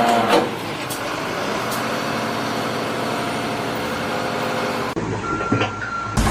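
A heavy vehicle's engine running steadily, with a few sharp clicks. About five seconds in the sound cuts abruptly to a different recording that carries a steady high tone.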